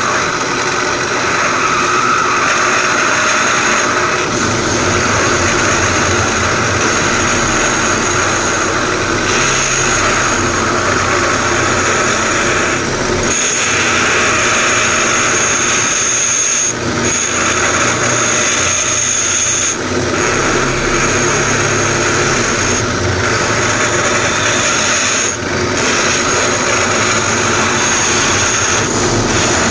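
Bench drill press running with a conical cutter cutting into an aluminium piston held against it by hand: a steady machining whine with a high screech that comes and goes as the cutter bites, and a few brief dips where it eases off. The piston is being relieved so the connecting rod of a big-bore kit can pass.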